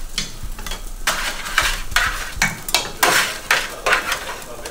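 Metal spatula scraping and chopping sliced döner meat on a perforated stainless-steel tray: a quick run of short scrapes and clacks, about two to three a second.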